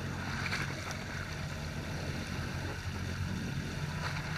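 Boat engine running steadily, with a rush of water.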